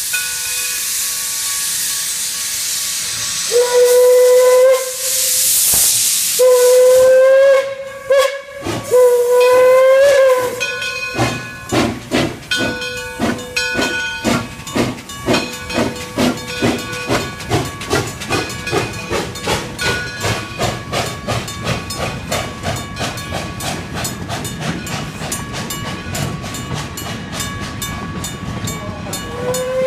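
Detroit & Lima Northern 4-4-0 steam locomotive venting a hiss of steam, then sounding three whistle blasts, each about a second and a half and rising slightly in pitch. The locomotive's bell then rings steadily at about two strokes a second as the train pulls out.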